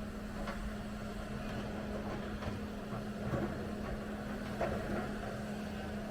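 Hyundai excavator's diesel engine running steadily with a constant low hum, heard from inside the cab, with a few faint knocks about half a second, two and a half, three and a half and four and a half seconds in.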